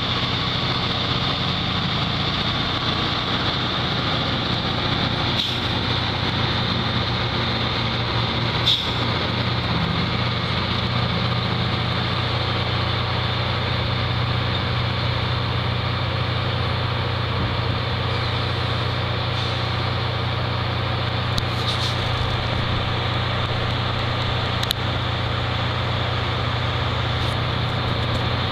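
Steady hum of a standing steam excursion train's idling machinery, with a faint high whine on top and a few faint clicks.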